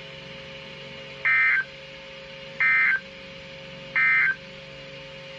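NOAA Weather Radio SAME End of Message code (NNNN) closing the weekly test: three short, identical bursts of buzzy two-tone digital data about a second and a half apart, over a faint steady hum.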